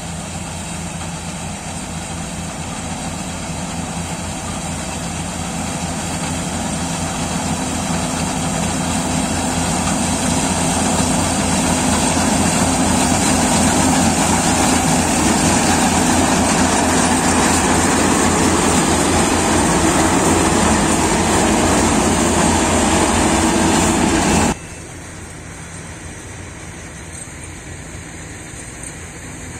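Yanmar AW70GV combine harvester running: a steady diesel engine and machinery drone with a fine regular pulse, growing louder over about the first twelve seconds. It drops suddenly to a quieter running sound about 24 seconds in.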